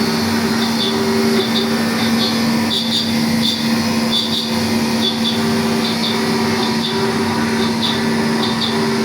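3-axis CNC milling machine cutting a mold: a steady hum with a tone that comes and goes, and short high-pitched chirps at irregular intervals.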